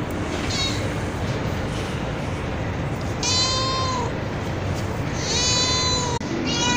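Street cat meowing over steady background noise: a short faint meow about half a second in, then two long drawn-out meows a couple of seconds apart, and another beginning right at the end.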